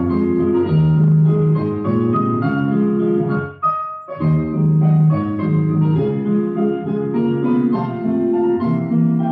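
Ballet class accompaniment music on piano, held chords changing in an even rhythm, with a brief break about four seconds in before the phrase starts again.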